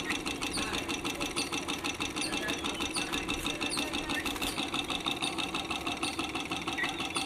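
Mini Stirling engine running steadily, its linkage clattering in a rapid, even rhythm that makes it a bit noisy.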